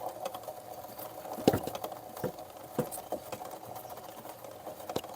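Bajaj Pulsar 150's drive chain running over its front sprocket: a steady mechanical whir with irregular clicks and knocks, the loudest about a second and a half in. The noise comes from a front sprocket whose teeth are worn thin.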